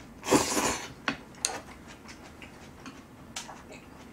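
Close-miked eating: a short loud slurp of ganjjajang (black-bean-sauce) noodles about half a second in, then chewing with scattered sharp wet mouth clicks.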